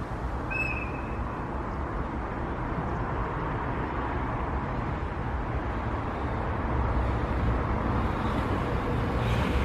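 EH500 electric locomotive and its freight train approaching: a steady rumble with a faint whine, slowly growing louder, with brighter wheel-on-rail noise coming in near the end. A short high chirp sounds about half a second in.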